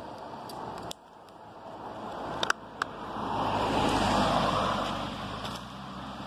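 A vehicle passing by: a rush of noise that swells from about two seconds in, peaks near the middle and fades before the end, with a few sharp clicks just before it builds.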